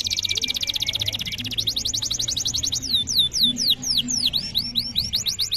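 Domestic canary singing a long, unbroken song: a very rapid trill, then a slightly slower trill, then a run of downward-sweeping whistled notes for about a second and a half, and a fast trill again near the end.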